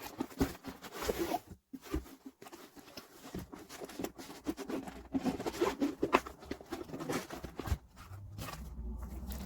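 Irregular rustling and light clicking handling noise, close to the microphone.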